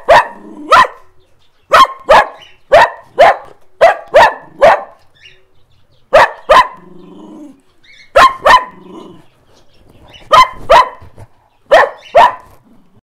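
A dog barking repeatedly: short, sharp barks, often two or three close together, with pauses of a second or two between the groups.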